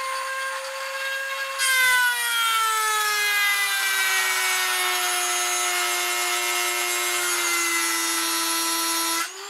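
Dremel rotary tool with a metal cut-off wheel whining, then about a second and a half in the wheel bites into the metal T-nut and grinds with a loud, hissing rasp. The motor's pitch sinks slowly as the deep cut loads it down, and near the end the wheel comes off the work and the motor speeds back up.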